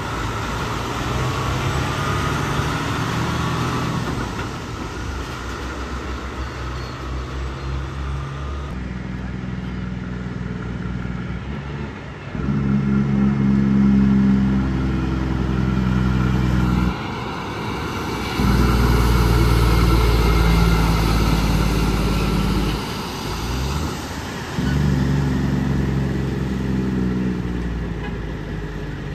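Heavy road vehicles, typical of semi-trucks, with diesel engines running at a steady pitch over road noise. The engine sound jumps abruptly in level and pitch a few times, loudest around the middle.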